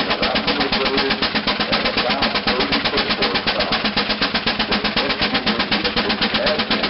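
Advance Rumely steam traction engine working hard under load on a Prony brake: its smokestack exhaust chuffs in fast, even beats, about eight a second.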